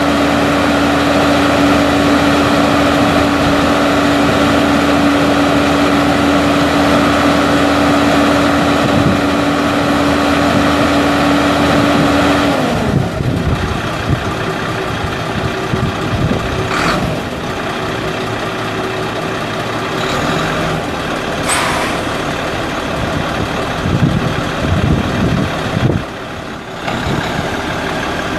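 Cummins ISC 8.3-litre six-cylinder turbo diesel of a Freightliner FL80 mixer truck running at a raised steady speed with a held whine. About halfway through, the pitch glides sharply down and the engine settles to a lower, quieter idle. Two short sharp noises come later.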